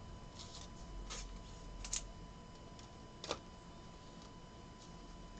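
Faint handling of trading cards: a few light clicks and soft rustles as a card is picked up and turned over.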